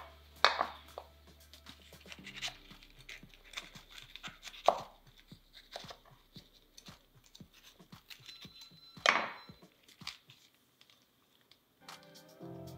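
Small kitchen knife cutting and scraping the seeds and pith out of a blanched green bell pepper over a wooden cutting board: scattered light clicks and taps of the blade, with a few louder knocks. Background music comes in near the end.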